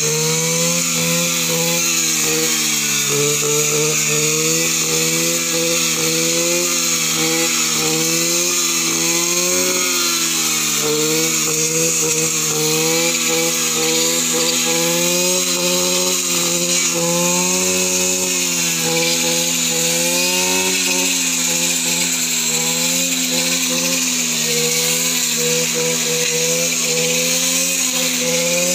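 Petrol brush cutter's small engine running at high revs without a break, its pitch wavering up and down as the blade cuts through weeds and undergrowth.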